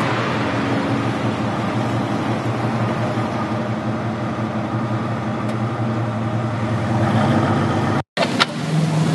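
Honda Jazz hatchback's engine idling with a steady low hum. The sound cuts off abruptly about eight seconds in.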